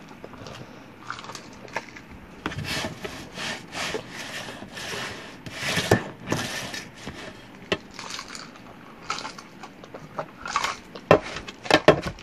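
Irregular rubbing and scraping close to the microphone, with a few sharp clicks near the end.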